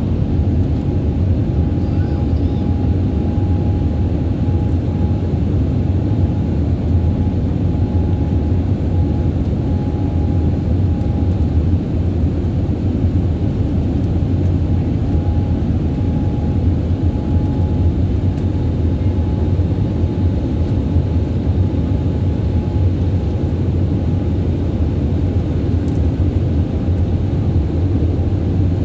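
Steady cabin noise of an Airbus A320neo in its climb: a loud, even rumble of the engines and rushing air, with a faint steady whine above it.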